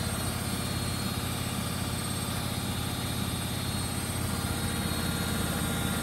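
Bendix BIW 103W front-loading washing machine running a spin cycle: a steady mechanical hum with a fast, even pulsing low down as the drum spins.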